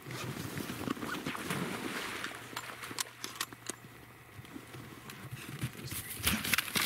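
Rustling and a patter of footfalls on the shore bank, with many scattered sharp clicks and a low steady hum for about two seconds midway.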